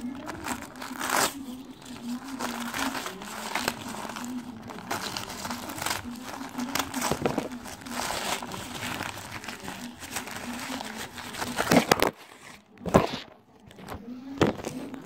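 Paper wrapping being torn and crumpled by hand: a dense run of rustling, crinkling and ripping. It breaks off about twelve seconds in, followed by two short loud bursts.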